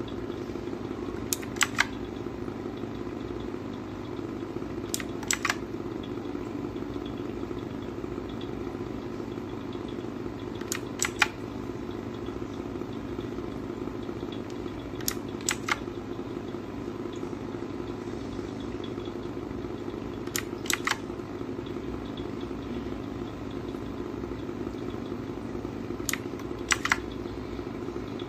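T-Wolf T50 keyboard keys pressed in short clusters of two or three sharp clicks, about every five seconds, over a steady low hum.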